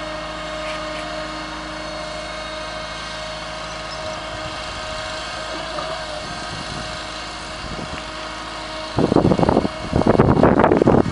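Land Tamer amphibious vehicle's engine running steadily as it drives across the water: an even hum with a held droning tone. About nine seconds in, loud rough noise comes in gusts and drowns it out.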